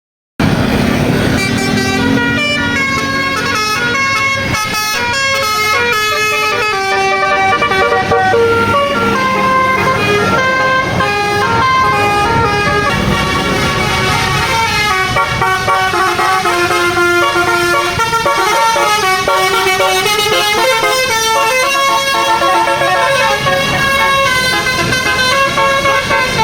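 Bus Basuri 'telolet' multi-tone horn playing a fast melody, its notes stepping up and down several times a second. It comes in abruptly about half a second in and plays on loudly without a break.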